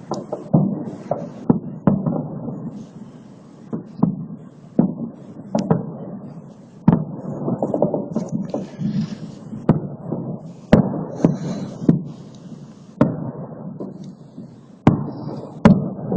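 Fireworks salute: a run of sharp bangs from bursting shells, roughly one a second at irregular spacing, over a continuous rumbling echo.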